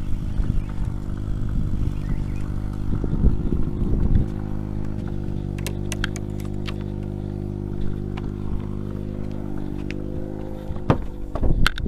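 Fishing boat's engine running steadily, with a few sharp clicks and knocks from around the middle and near the end.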